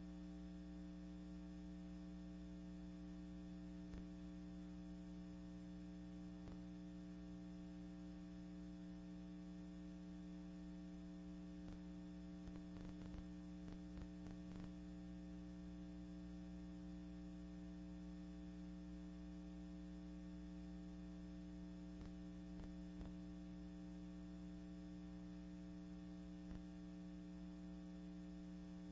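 Steady low electrical hum with faint hiss and scattered faint clicks: background noise on the soundtrack of silent archival film footage.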